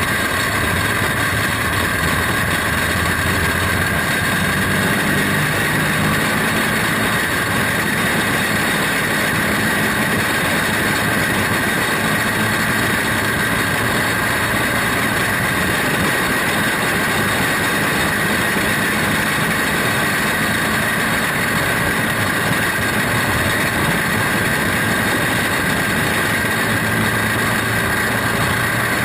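Onboard sound of a caged dirt champ kart's engine running steadily at low speed, with no hard revving, as it circulates in line under a yellow caution flag.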